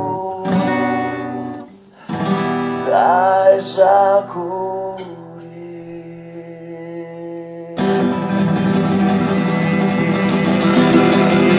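Baton Rouge acoustic guitar strumming chords, with a male voice singing a few bending, wordless notes about three seconds in. The strumming breaks off briefly near two seconds, lets one chord ring from about five seconds, and picks up again near eight seconds.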